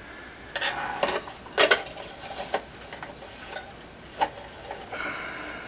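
Hard 3D-printed plastic parts knocking and clicking irregularly as a brace is fitted onto a clock frame, with a short scrape near the end.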